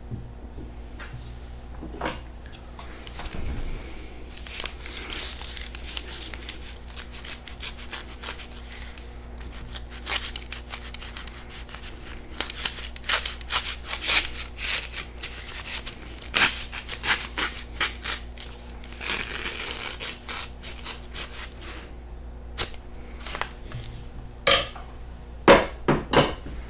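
A paper envelope being opened and its folded paper contents handled: irregular crinkling, rustling and sharp paper clicks, thickest in a longer rustle about two-thirds of the way through.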